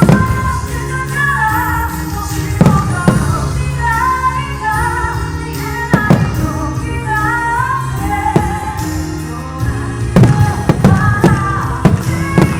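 A pop song with a woman singing over band accompaniment, while fireworks shells burst several times, in a quick cluster about ten seconds in.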